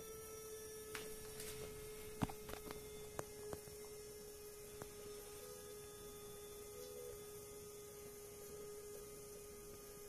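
Small electric motor of a homemade LEGO-compatible monorail engine running along its geared track with a faint, steady whine. A few sharp clicks and knocks come in the first few seconds.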